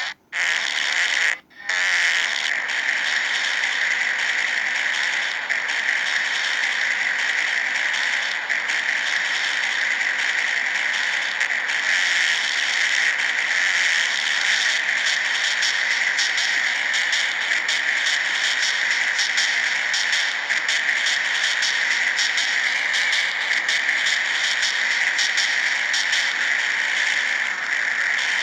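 Prolonged rasping fart sound effect: a steady, high-pitched crackling rattle made of very rapid clicks. It breaks off twice briefly in the first two seconds, then runs on unbroken.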